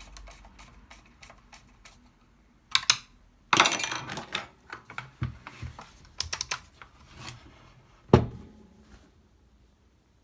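Hard plastic and metal parts of a belt sander being handled: scattered clicks and clatter, a short rattling burst about three and a half seconds in, and one louder knock about eight seconds in.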